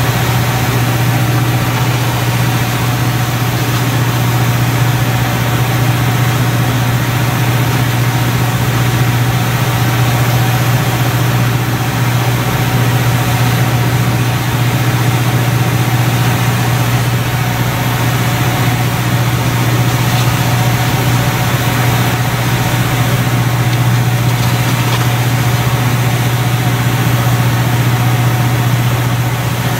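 A vessel's engine running steadily with a deep, even drone, over a continuous rushing hiss of water.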